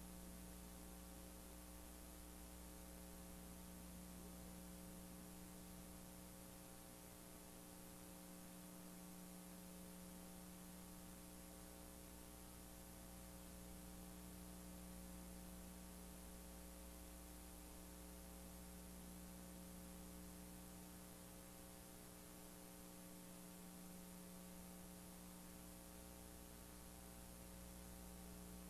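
Near silence: a faint, steady electrical hum with a low hiss over it, unchanging throughout.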